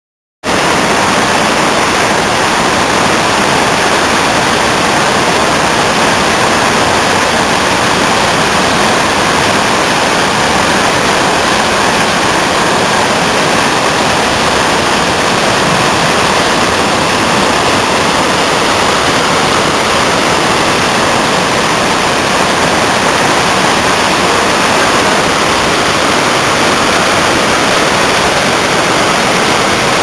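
Waterfall water rushing over rocks through white-water rapids: a loud, steady rush that starts about half a second in.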